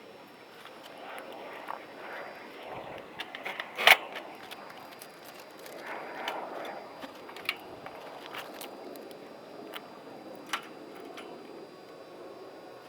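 Handling noise: scattered clicks and knocks of things being moved about by hand, with one sharp, loud snap about four seconds in.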